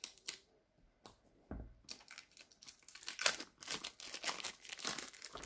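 Scissors snipping the plastic shrink-wrap film on a small cardboard box, a soft knock, then the film crinkling and tearing as it is peeled off by hand from about two seconds in.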